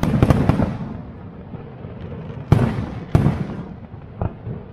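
Fireworks shells bursting: a quick cluster of bangs at the start, then two big booms about two and a half and three seconds in and a smaller one near the end, with a low rumble between them.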